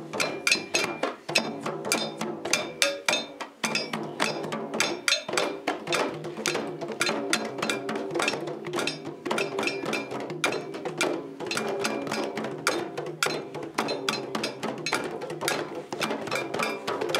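A school percussion ensemble playing a steady, fast rhythm on djembes and other hand drums, with small hand percussion struck with sticks layered over them; several strikes a second, with no pause.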